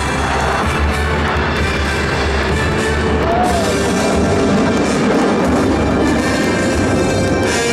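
Loud music playing steadily.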